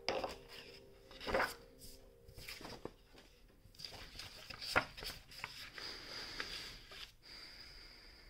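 Sheets of paper handled and slid across a wooden desk: rustling and sliding with a few sharp knocks, the loudest about a second in and again around the middle.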